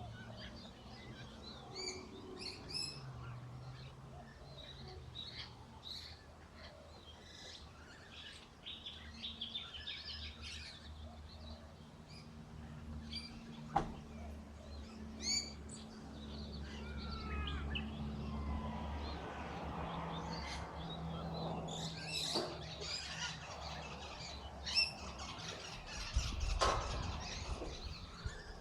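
Birds chirping in many short, high calls, over a low steady hum, with one sharp click about 14 seconds in.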